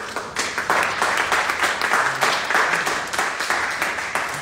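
A roomful of people applauding: a dense run of hand claps that swells about half a second in and keeps up.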